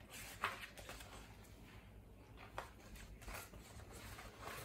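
Pages of a large picture book being opened and turned by hand: soft paper rustling with a few light clicks and flaps, the sharpest about half a second in.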